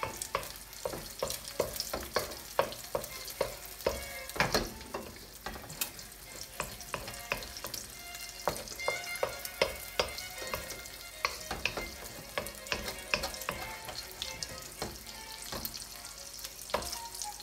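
An egg frying in oil in a wok: a steady sizzle with frequent sharp crackles and pops of spitting oil, several a second.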